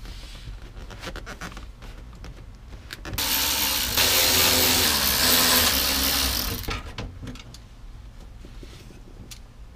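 Cordless drill/driver motor running steadily for about three and a half seconds, starting about three seconds in, used to remove screws from the rear speaker and package-tray panel. Light handling clicks and rustles come before and after it.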